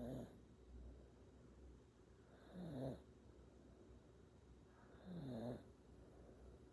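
An 8-month-old baby snoring softly in sleep: three short snores, one about every two and a half seconds.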